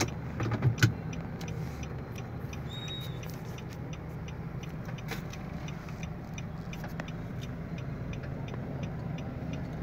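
Car cabin with the engine and road noise running steadily, and a regular ticking about three times a second, typical of a turn-signal indicator. A few knocks come in the first second.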